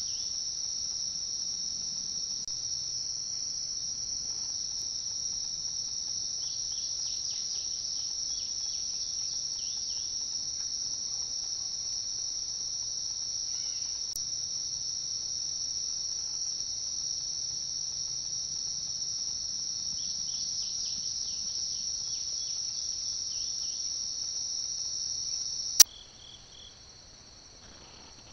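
Steady, high-pitched chorus of insects trilling without a break. Near the end a single sharp click marks a cut from one recording to another, after which the chorus is quieter.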